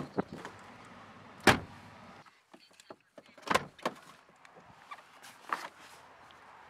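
A pickup truck's door shut hard once about a second and a half in, with clicks and knocks from its handle and latch before and after.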